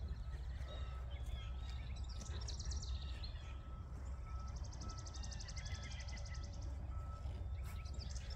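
Songbirds singing, with a long fast trill from about four to six and a half seconds in, over a low steady rumble.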